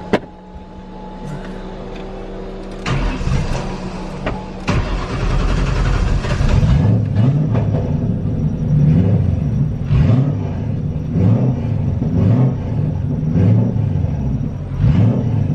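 Turbocharged Ford Crown Victoria's 4.6-litre V8 being started cold on E85: a few seconds of steady starter whirring, the engine catching after about three to five seconds, then a loud, lumpy idle with a rhythmic low pulsing.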